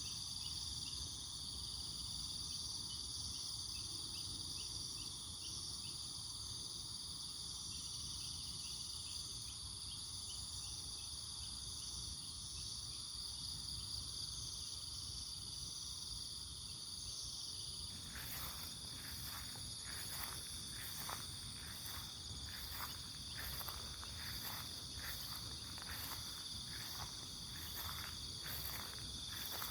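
Chorus of crickets and other insects, several steady high trills at once. About two-thirds of the way in, a pulsing insect call joins them, repeating about three times every two seconds.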